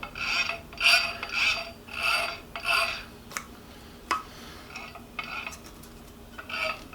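Rhythmic rasping, rubbing strokes, about two a second. They ease off midway, a single sharp click comes about four seconds in, and the strokes start again near the end.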